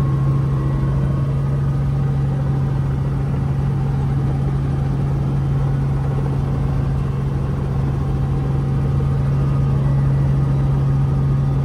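Small helicopter's engine and rotors running steadily with a constant low hum, heard from inside the cabin.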